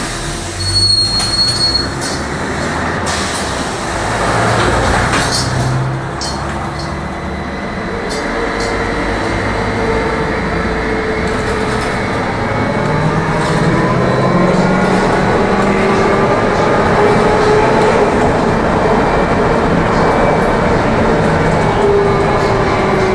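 Trolleybus interior while driving: the electric traction drive whines in several rising tones as the vehicle gathers speed, over tyre and road noise. A few knocks and rattles come in the first few seconds.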